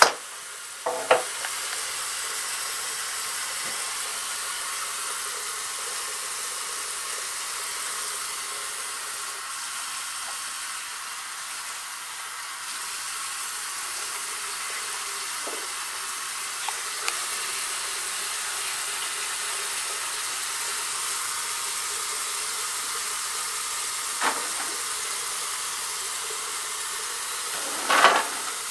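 A steady high hiss with a few brief knocks as the pipes under a bathroom sink cabinet are handled: one about a second in, one later on and a louder clatter near the end.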